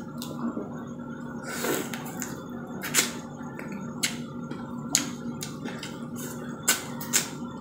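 Close-up mouth sounds of eating cooked shrimp: chewing and lip smacks, heard as sharp clicks about once a second over a steady low hum.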